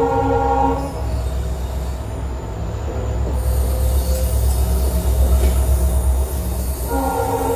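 Indian Railways WDG-class diesel locomotive: its horn stops under a second in, then the engine's low rumble grows louder as it accelerates, and the horn sounds again near the end.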